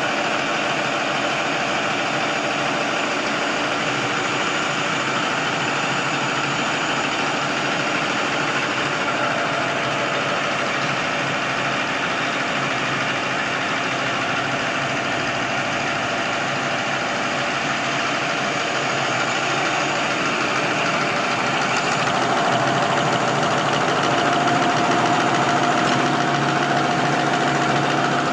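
XY-OQ-7000A automatic napkin tissue folding machine running: a steady, fast mechanical clatter of its rollers and folding parts. A humming tone comes in near the end as the sound grows a little louder.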